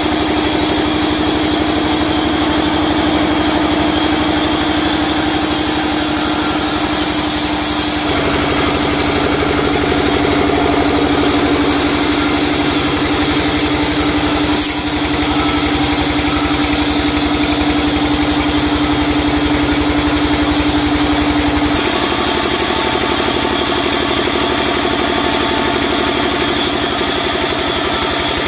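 Sawmill band saw running and ripping a wooden plank, a loud steady machine noise. A steady whine rides on it, shifting slightly about a third of the way in and stopping about three-quarters through while the machine keeps running.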